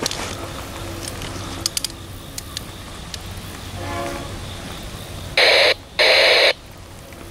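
Freight locomotive's air horn, sounded for railfans: a faint short toot about four seconds in, then two short, very loud blasts near the end that overload the microphone, the second slightly longer. A locomotive engine rumbles underneath.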